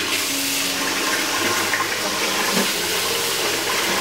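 Kitchen tap running steadily into the sink while dishes are washed by hand.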